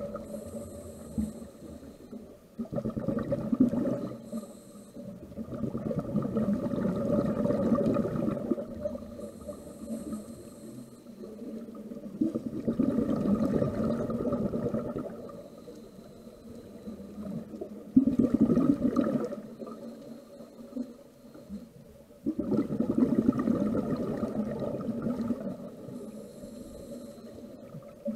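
Scuba diver breathing through a regulator underwater: exhaled bubbles gurgle past in long bursts about every five seconds, alternating with quieter inhalations that carry a faint high hiss from the regulator.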